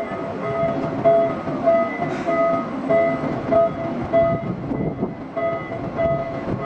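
Electric towing locomotive (canal mule) sounding its warning signal: a rapid, evenly repeating beep, about three a second, over a low rumble.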